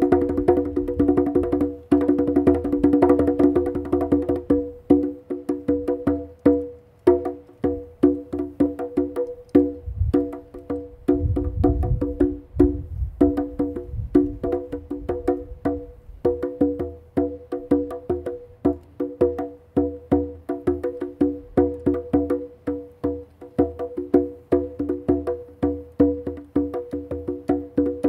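Hand drumming on a conga: quick, steady strokes, each ringing at the same few pitches.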